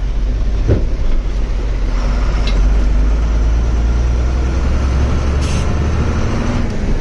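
Truck's diesel engine running steadily under the cab as the truck drives along, with road and cab noise, a single knock about a second in and a brief hiss near the end.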